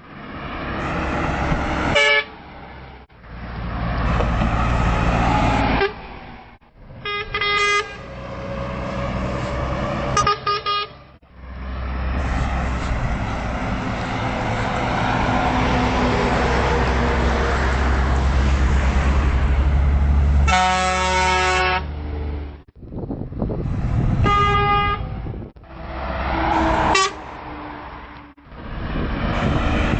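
Trucks passing one after another, each sounding a short horn toot as its engine rumbles by. About two-thirds of the way through, one truck's engine rumble swells for several seconds before a longer, louder horn blast.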